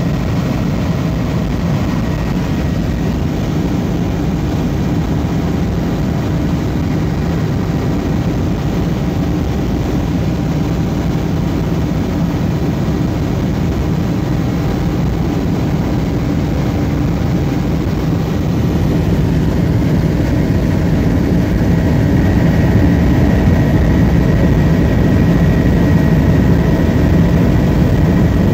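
Helicopter engine and rotor noise heard from inside the cabin: a loud, steady drone with a thin high whine above it, growing a little louder about twenty seconds in.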